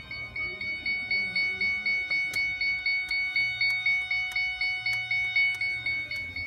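Ford Fiesta dashboard warning chime: a rapid string of identical high electronic beeps, about five a second. From about two seconds in, sharp clicks come roughly three times a second alongside it, from the turn-signal flasher.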